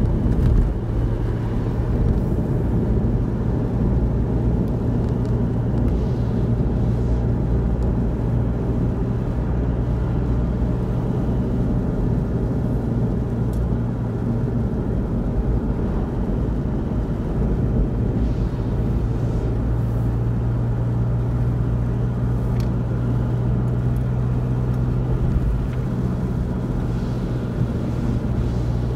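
Car driving on the road, heard from inside the cabin: a steady low rumble of engine and tyre noise with a constant hum.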